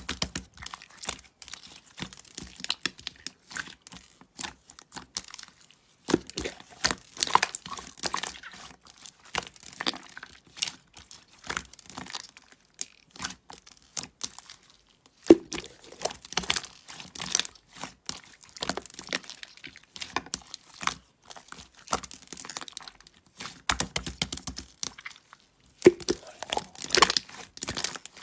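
Close-up crinkling, crackling and tearing of handled material, in irregular bursts with a few short pauses.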